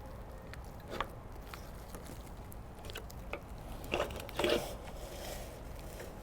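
A few scattered knocks and scrapes as the roll tube is worked out of the aluminum screen housing, the loudest cluster about four and a half seconds in.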